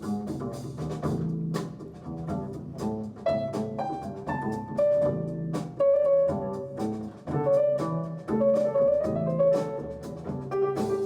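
Jazz recording played back over hi-fi loudspeakers: an instrumental break between sung verses, a melody line of held notes over a walking double bass, with no vocals.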